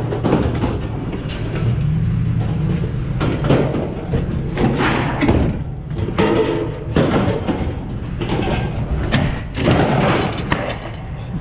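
A metal-framed patio table being dragged out of a pickup bed full of scrap metal and dropped onto a scrap pile: metal scraping against metal, with repeated clanks and thuds and a brief ringing of struck metal about six seconds in.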